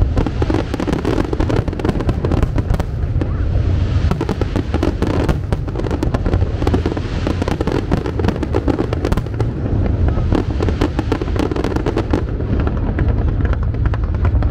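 Aerial fireworks display: many bangs and crackles in quick succession over a deep, steady low rumble.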